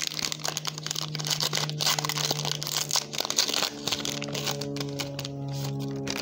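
Plastic trading-card pack wrapper crinkling and tearing as it is opened, over background music with sustained notes. The crinkling thins out near the end.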